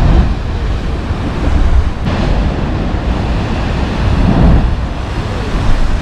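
Heavy ocean surf surging and crashing into a narrow rock chasm, loudest right at the start as the spouting horn blows a jet of spray, then swelling again about two seconds and four and a half seconds in. Wind rumbles on the microphone throughout.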